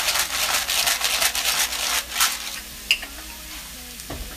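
Crumbled turkey sausage, celery and onion sizzling in a stainless steel skillet, with a run of short scratchy strokes over the first two seconds or so. After about three seconds the strokes stop, a single click sounds, and a quieter sizzle goes on.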